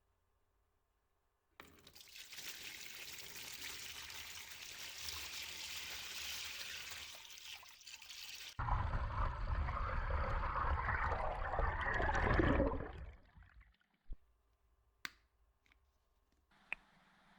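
Running water for washing a brass hammer: a thin hissing stream for about seven seconds, then a heavier stream pouring and splashing for about four seconds. A few short knocks follow near the end.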